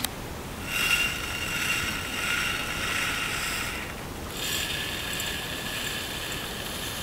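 Granulated unrefined sugar poured into a glass beaker of oil and soy milk, a grainy hissing patter against the glass. It comes in two pours: one from about a second in lasting some three seconds, then a second after a brief pause.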